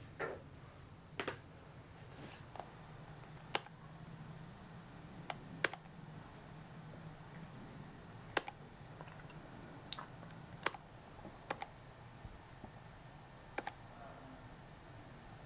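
Sparse, irregular clicking from an Apple laptop in use, about a dozen sharp clicks spread out over a faint, steady low hum.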